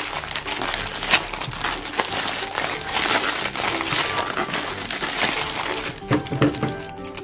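Plastic mailer bag crinkling and rustling as it is pulled open and handled, with the black plastic bag inside it, in irregular crackles, over light background music.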